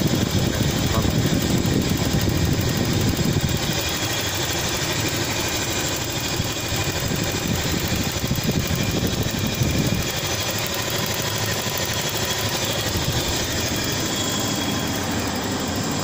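The engine of a 2004 Toyota Kijang Kapsul idling steadily, heard close up from above the open engine bay.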